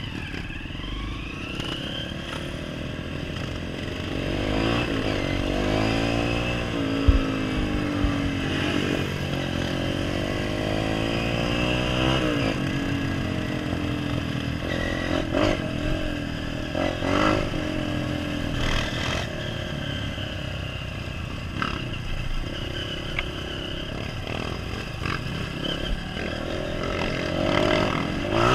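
Honda CRF230F dirt bike's single-cylinder four-stroke engine running under the rider, its pitch rising and falling over and over as it revs up and shifts through the gears. Several sharp knocks and clatter come through, the loudest about seven seconds in.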